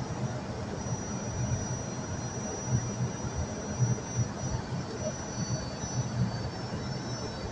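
Steady flight-deck noise of an Airbus A320 on final approach: a constant rush of airflow and jet engines with a low rumble, and a thin, steady high tone above it.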